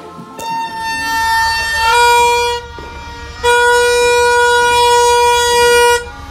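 A child blowing a yellow plastic toy horn, the New Year noisemaker called a torotot. It gives two long, loud, buzzy blasts: the first steps up in pitch partway through, and the second is held steady for about two and a half seconds.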